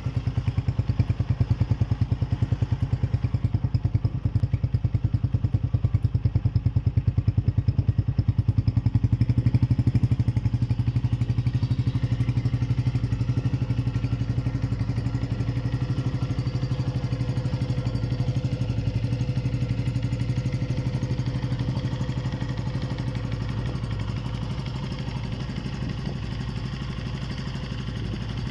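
2011 Sankie motorcycle's single engine idling steadily through its genuine stock silencer, a fast, even exhaust beat with no revving.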